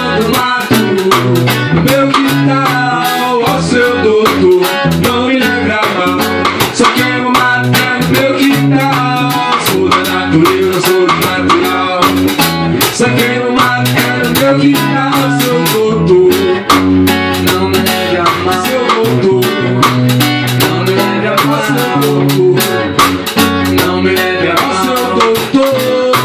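A band playing an instrumental passage, with guitar and bass guitar over a steady, evenly spaced beat.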